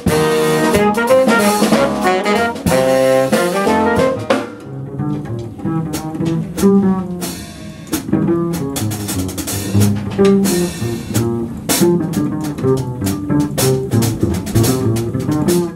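Hard bop jazz quintet playing live: trumpet and tenor saxophone play together for about the first four seconds, then stop, leaving piano, double bass and drum kit playing on with cymbal strikes.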